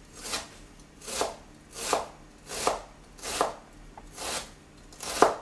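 A knife cutting through half an onion on a chopping board in steady, even strokes, about seven in all, each a short slicing swish ending in a knock on the board, as the onion is sliced for dicing.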